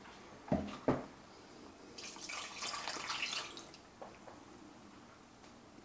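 Two light knocks, then a cup of apple cider vinegar is poured from a measuring cup into a steel saucepan of brown sugar and ketchup, splashing for about a second and a half.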